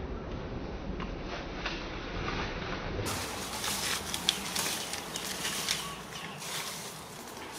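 Outdoor ambience: a low rumble at first, then, from about three seconds in, scattered crackles and sharp taps over a noisy background.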